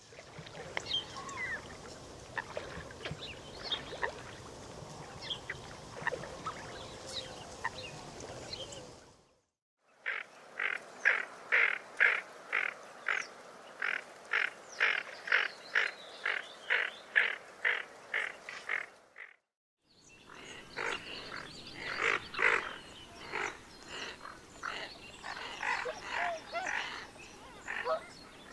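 Three duck recordings, each about nine seconds long, separated by short silences. First a common pochard's scattered faint calls over a steady background hiss. Then a tufted duck calling in a regular series of about two calls a second, and then a greater scaup's irregular rapid calls.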